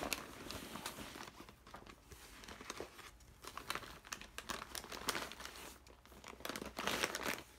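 Irregular crinkling and rustling of a bag being handled, in bursts of sharp crackles, loudest at the start and again about a second before the end.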